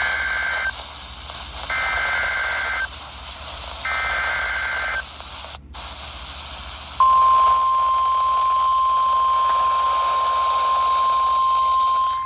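Emergency Alert System header received over NOAA Weather Radio with static: three short bursts of warbling digital data screech, each about a second long and about two seconds apart. About seven seconds in, the steady single-pitch 1050 Hz NOAA Weather Radio warning alarm tone starts. Together they signal the start of a new severe thunderstorm warning.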